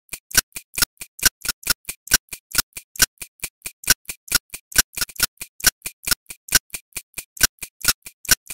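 Rapid, evenly spaced clicks, about four to five a second, alternating louder and softer, like a steady ticking.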